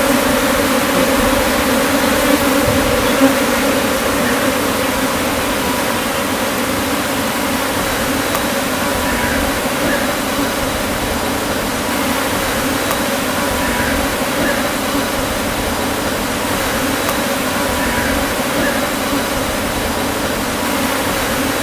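A swarm of honey bees buzzing in a steady hum as the colony flies in and settles on the sack holding their queen.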